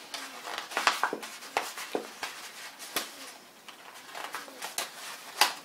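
Folded paper of an origami box crinkling and crackling as hands press and shape it, in irregular crisp crackles, the loudest just before the end.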